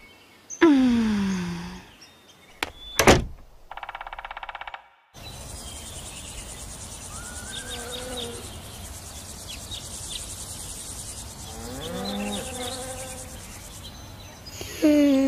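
Cartoon summer-meadow ambience: crickets chirring steadily with a few bird calls. It is preceded by short sound effects, a falling pitched swoop, a sharp click and a brief rattle.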